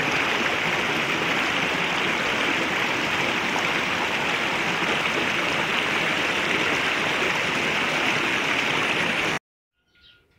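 Small creek running steadily, an even rushing of water; it cuts off suddenly about a second before the end.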